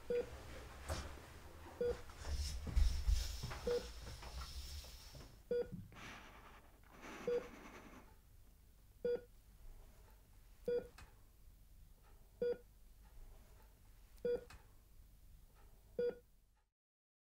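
Short electronic beeps repeating evenly, about one every 1.8 seconds, over a low rumble and some rustling during the first few seconds. The sound cuts off abruptly near the end.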